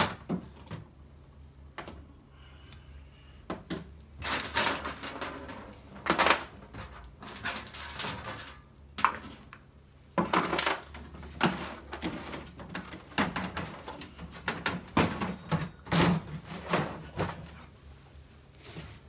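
Irregular clatter and knocks of hard objects being handled inside a grey plastic storage crate, coming in clusters, with the crate's folding plastic lid flaps being shut.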